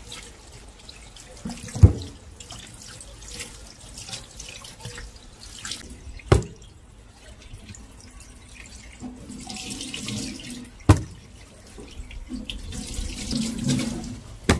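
Water running from a tap into a sink, heavier near the end, with four sharp knocks along the way.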